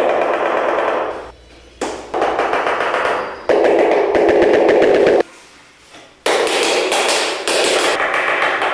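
Rubber mallet rapidly tapping a large 60x120 cm porcelain floor tile to bed it into the adhesive, a fast run of knocks that stops and starts abruptly several times.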